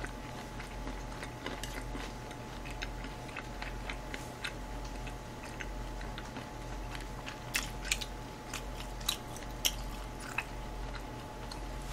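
A person chewing mouthfuls of chop steak close to the microphone: soft scattered mouth clicks and smacks, with a few sharper clicks after about seven seconds. A steady low electrical hum runs underneath.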